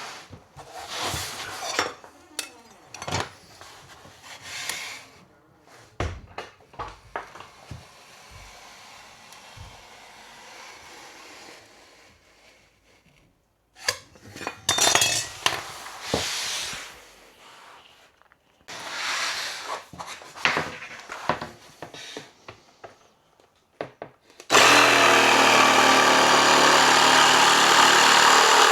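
Intermittent scraping, rubbing and knocks of hand work, then near the end a power tool's motor starts and runs loud and steady.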